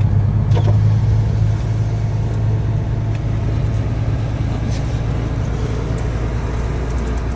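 Car engine running with a steady low hum, with road noise over it.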